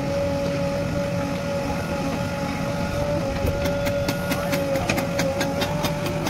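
JCB 3DX backhoe loader's diesel engine running under load with a steady whine as the backhoe arm digs. About three and a half seconds in, a rapid even ticking, about five a second, joins in.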